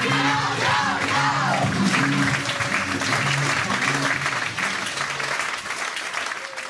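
Audience applauding over recorded music with a repeating bass line played through the PA; the music fades out near the end.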